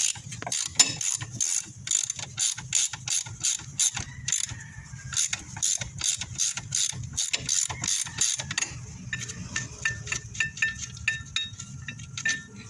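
Ratchet wrench clicking as a bolt is turned out, about three clicks a second, with faster, lighter clicking in the last few seconds.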